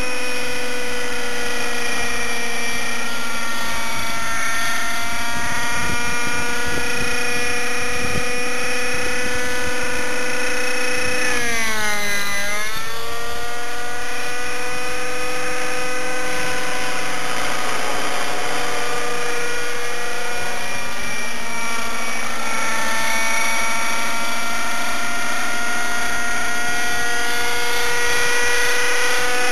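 T-Rex 600 Nitro Pro RC helicopter in flight: its OS 50 Hyper two-stroke nitro engine with a Hatori performance muffler runs at a steady high pitch, a whine with many overtones. About twelve seconds in, the pitch dips sharply and comes straight back up.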